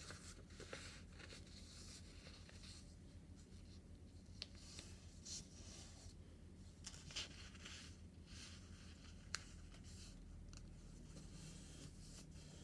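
Faint rustle and swish of a paper envelope template being folded and creased by hand, fingers sliding and pressing along the folds, with a few light ticks of the paper.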